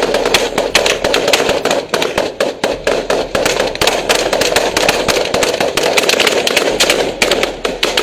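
Rapid, continuous gunfire: many sharp shots a second overlapping into a dense crackle, easing briefly near the end.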